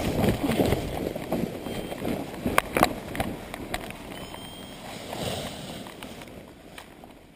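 A paraglider pilot and his harness sliding and rustling through dry grass and straw stubble on landing, with two sharp cracks about two and a half seconds in. The rustling dies down as he comes to rest.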